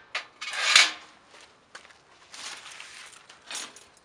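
Steel legs of a folding sheet-steel barbecue grill clattering and scraping as they are laid inside its metal box, loudest with a clatter and knock under a second in, then quieter rattling and scraping.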